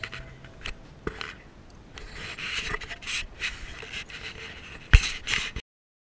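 Handling and rubbing noise on a dog-mounted GoPro camera: irregular scraping and small clicks against the housing, a sharp knock near five seconds in, then the sound cuts off suddenly.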